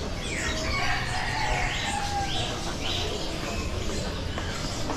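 Caged songbirds chirping and whistling, with several calls overlapping and three short repeated notes in the middle.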